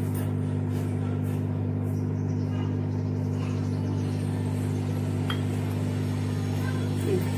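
A steady low hum, even and unchanging, with a faint click about five seconds in.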